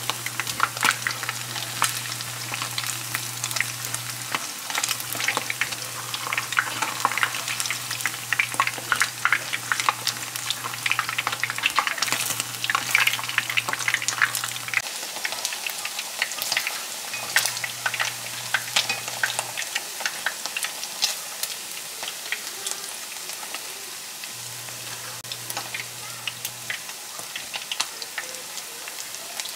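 Food frying in hot oil, with a dense crackle and sizzle that thins out somewhat toward the end.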